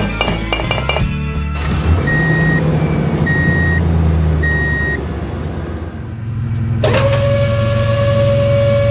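Background music track with a rapid run of clinks at the start, then three evenly spaced short beeps, and a steady droning tone that starts suddenly near the end.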